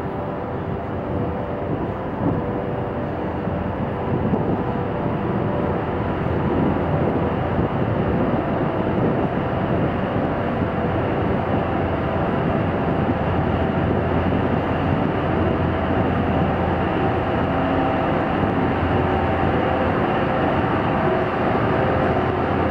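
Steady mechanical drone of a car ferry's engines and machinery heard on the vehicle deck, with a low hum and several held tones. It grows a little louder over the first few seconds, then stays even.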